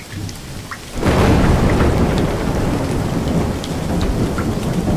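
Rainstorm: steady rain with scattered drops ticking, and a deep thunder rumble that swells in about a second in and rolls on.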